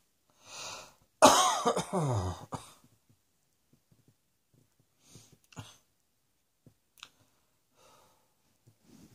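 A person coughing: a breath in, then about a second in a loud, rough coughing bout lasting over a second, its pitch sliding down as it goes, followed by a few faint breaths and small clicks.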